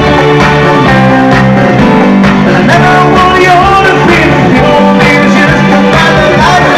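Live band playing on an outdoor stage: electric guitar, drums and keyboards with singing, loud and continuous.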